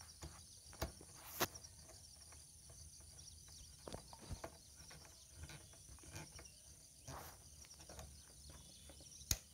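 Scattered light clicks and taps of a screwdriver turning the terminal screws of plastic MCB circuit breakers, the sharpest about a second and a half in and just before the end, over a steady high-pitched background hiss.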